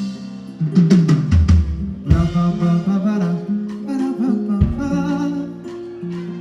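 Live band music with a drum kit, bass guitar and other instruments, with heavy bass hits about a second in and again past the middle.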